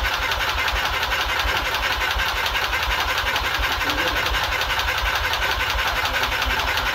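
Starter motor cranking a brand-new race engine with its injectors unplugged, so it turns over with an even, rhythmic chug but does not fire. This is dry cranking to prime the oil system before the first start, and it brings the oil pressure up to over a bar.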